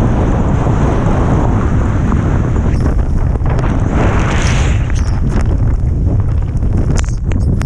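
Loud wind buffeting the microphone during a ski run, a steady low rumble throughout. Skis swish and scrape across the snow, with one longer, louder scrape about four seconds in and a few sharp clicks near the end.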